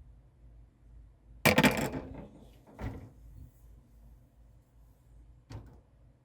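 A clatter of hard objects being handled: a loud rattle of several quick strikes about a second and a half in, a smaller knock about three seconds in, and another short knock near the end.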